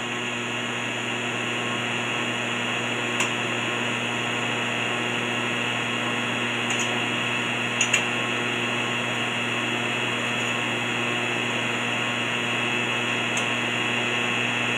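TIG welding arc burning steadily at about 100 amps while a horizontal T-joint is welded: an even hiss over a steady hum, with a few faint pops.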